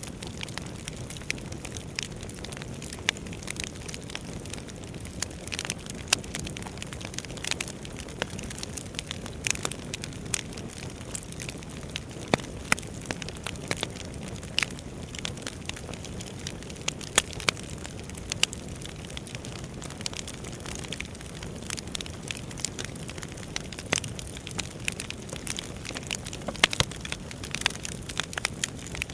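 Wood fire burning, a steady low rush with frequent irregular crackles and pops of burning logs.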